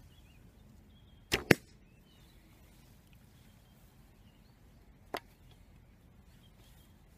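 An SAS Tactical Survival Bow, shot with no string silencers and its pivot-pin screws tightened. About a second and a half in, the string snaps forward on release with two sharp cracks a split second apart, the second louder. A fainter single click comes about five seconds in.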